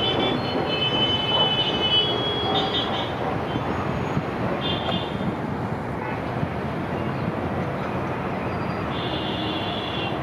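A train passing on the track, making a steady, dense running noise. Short high-pitched tones come through near the start, about five seconds in and near the end.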